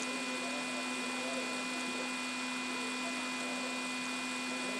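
Steady electrical hum with several constant tones over a faint hiss, unchanging throughout.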